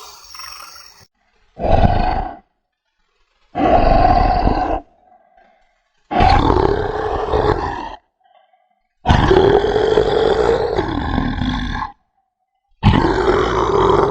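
Dinosaur roar sound effects: five separate roars, each with a rough pitched growl, separated by silence. They grow longer, from under a second to about three seconds.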